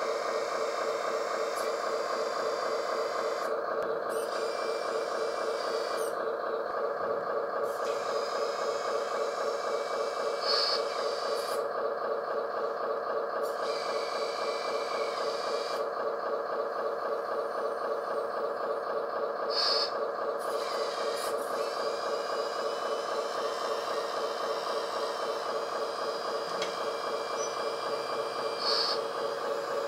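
Electric hydraulic pump of a LESU radio-controlled hooklift truck with loader crane, running steadily with a whine while it works the crane grab and the hook arm. A brief higher-pitched blip comes about every nine seconds.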